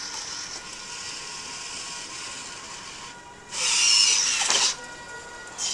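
Mechanism of an interactive kinetic sculpture working as its tendrils move: a steady hiss with a faint whine, and a much louder burst of hiss lasting about a second past the middle.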